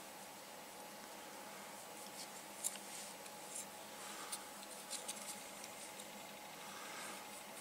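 Cotton cord being handled and knotted with a small metal tool on a tabletop: faint rustling and scattered light clicks, the sharpest about two and a half seconds in, over a steady hiss.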